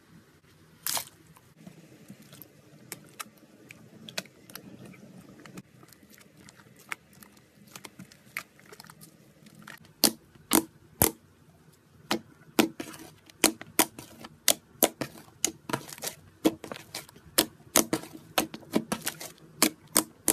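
Thick foamy slime being poked and squeezed by fingers, giving sharp popping clicks as air pockets burst. The clicks are sparse at first, with one louder click about a second in, and come about two to three a second from about halfway on.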